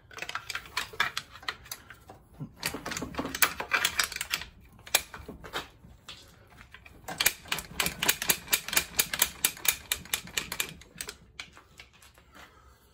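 Socket ratchet clicking in three quick runs with short pauses, working the mounting bolts of a car's air-conditioning compressor.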